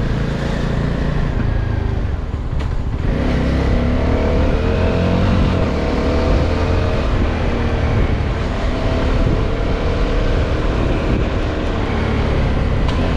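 CFMOTO 250SR's single-cylinder engine and exhaust under way, dipping briefly about three seconds in and then rising steadily in pitch as the bike accelerates.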